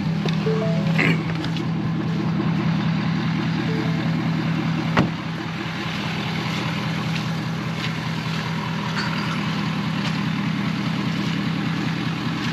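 Pickup truck engine running steadily at low revs, with one sharp knock about five seconds in.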